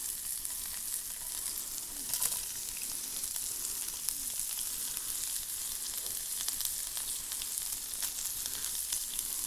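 Sausage and scallions frying in a sauté pan: a steady sizzling hiss with scattered small pops and crackles.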